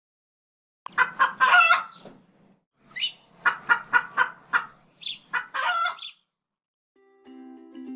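A rooster crowing twice. Each call is a run of short notes ending in a longer, drawn-out one, and it comes in over dead silence as an inserted sound effect. Ukulele music begins near the end.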